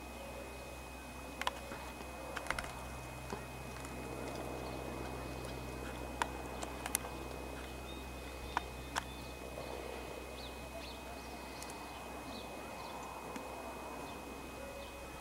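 Collared peccary (javelina) rooting in stony desert soil: scattered sharp clicks and crunches of pebbles and dirt, a few in the first three seconds and another group between about six and nine seconds in, over a steady low background hum.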